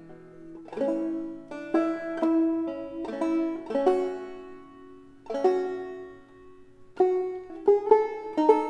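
Music: a plucked string instrument playing a slow, unaccompanied tune. Single notes and chords are plucked every half second to second and ring out, fading between plucks.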